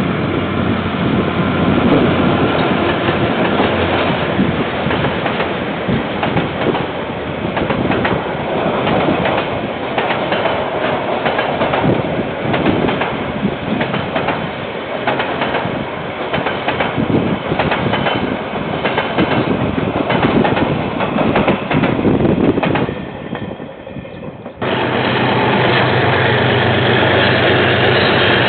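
Freight train of container wagons rolling past, wheels clattering steadily over the rails. About 25 seconds in it switches abruptly to the steady low running of a KiwiRail diesel locomotive's engine.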